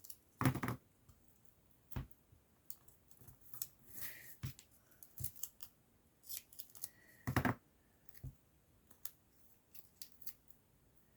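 Scissors snipping paper in short, irregular cuts, with light clicks and rustles of the paper being handled.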